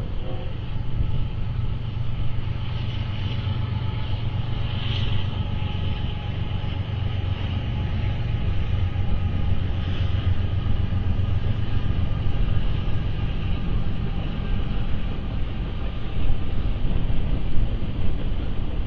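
Train passing, a steady low rumble of engine and wheels that eases off about fifteen seconds in, with faint high-pitched squeals at times.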